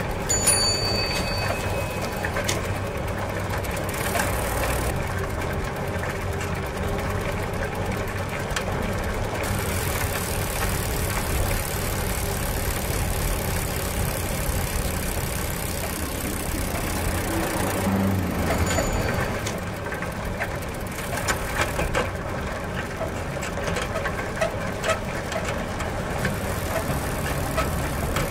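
Bicycle being ridden: a steady running noise of chain and wheels, with scattered clicks and rattles.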